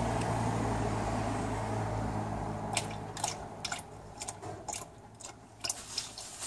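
Automatic transmission fluid draining in a thin stream from the drain hole of a 5L40E transmission pan. A steady low hum fades over the first three seconds, then irregular sharp spatters and ticks of the fluid follow, about a dozen of them.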